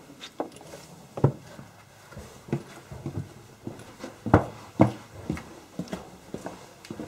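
Footsteps on a hard floor: irregular single steps with some echo, the loudest a little after a second in and twice more past the middle.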